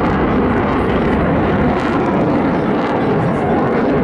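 Eurofighter Typhoon jet engines in flight: a loud, steady rushing roar with no breaks.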